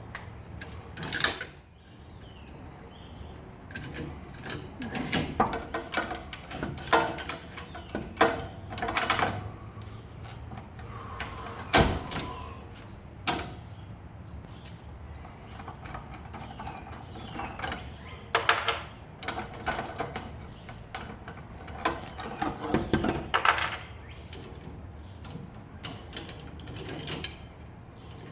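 Irregular clicks, clanks and scrapes of hand work on garage door opener parts as the trolley is fitted onto the rail, with one sharp knock about twelve seconds in.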